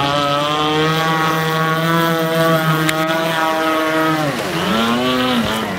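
Electric RC speedboat running at speed: a steady whine from its motor and propeller. About four and a half seconds in the pitch dips sharply and comes back up as the throttle is eased and opened again.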